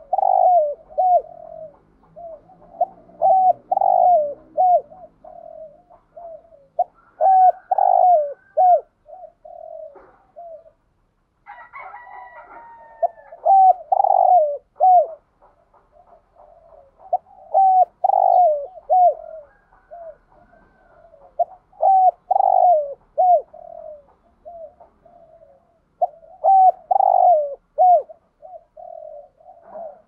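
Spotted dove cooing: repeated phrases of several quick coos, a phrase about every four seconds, with a brief higher call about twelve seconds in.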